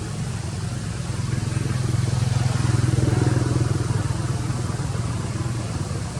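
A motor engine running with a steady low hum, growing louder for a couple of seconds in the middle and then easing off.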